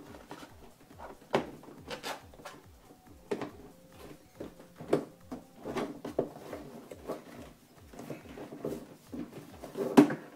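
Irregular clicks, knocks and rustles of hands hooking a wire through the holes of a car's wheel-arch liner and pulling the liner back. The loudest knock comes near the end.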